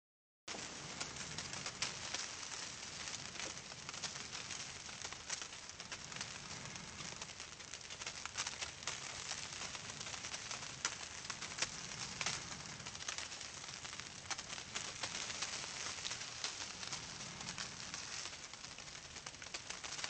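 Blizzard: wind-driven snow giving a steady hiss full of tiny crackling ticks, with a faint low rumble of wind underneath. It starts abruptly about half a second in.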